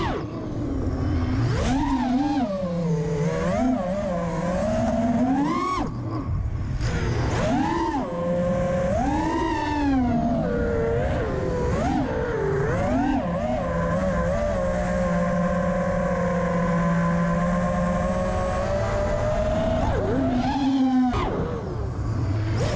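FPV racing quadcopter's brushless motors (Emax Eco 2400KV on Azure props) whining, the pitch climbing and dropping again and again as the throttle is punched and chopped, with a steadier held tone for a few seconds in the middle.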